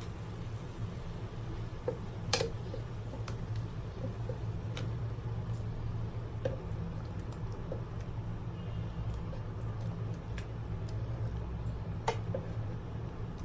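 Thick cooked tomato-onion masala squelching softly, with scattered small pops and a few light clicks of a utensil against the pan or jug, over a steady low hum.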